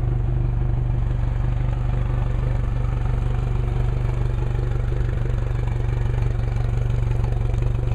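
Suzuki 115 hp four-stroke outboard motor idling steadily, just started.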